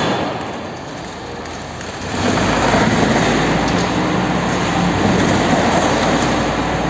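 Machinery running loudly with a dense, rattling noise. It eases off for about two seconds, then comes back up with a steady low hum underneath.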